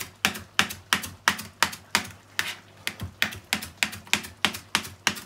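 Kitchen knife chopping fresh coriander on a plastic chopping board: a steady run of quick taps, about four a second.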